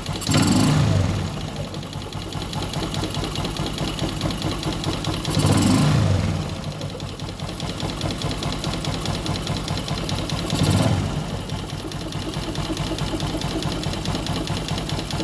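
Yamaha Jupiter MX single-cylinder four-stroke engine idling with a fast, even ticking, revved briefly three times about five seconds apart. It carries an odd noise that the owner cannot place and calls fairly smooth.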